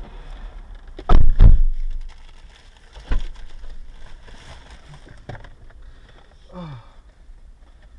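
Two loud, heavy thumps in quick succession about a second in, then a lighter knock about two seconds later.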